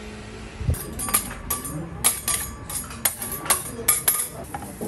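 A low thud, then an irregular run of sharp clinks and taps over about three seconds, some ringing briefly.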